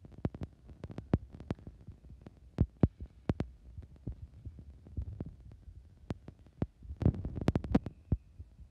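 Ball hockey play: irregular sharp clacks and knocks of sticks and the plastic ball on a hard court, with a quick flurry of them about seven seconds in.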